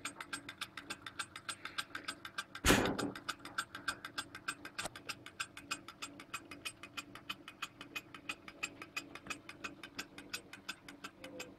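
Small two-cylinder model Stirling engine running on the heat of a spirit-burner flame, its mechanism clicking rapidly and evenly with each turn of the flywheel. A brief loud burst of noise cuts in about two and a half seconds in.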